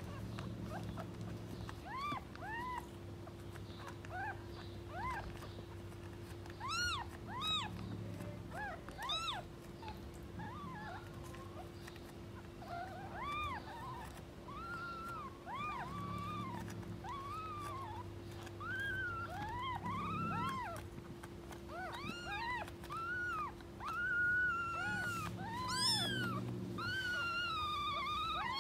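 Young kittens mewing over and over: many short, high-pitched, arching mews, scattered through the whole stretch and coming thicker and higher toward the end.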